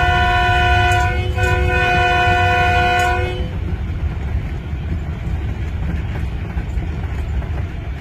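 Train horn sounding a long, loud chord of several tones, wavering briefly about a second in and cutting off about three and a half seconds in. Under it is a steady low rumble of the train running.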